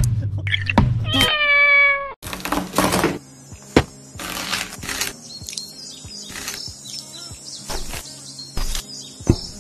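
A cat meows once, about a second in, in one drawn-out call. Then a knife cuts into a whole watermelon, a scattered series of sharp clicks and cuts as the rind is scored.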